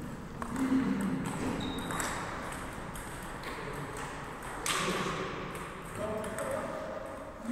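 Table tennis balls clicking off paddles and the table during rallies in a large sports hall, many short sharp hits at irregular intervals, with a few voices.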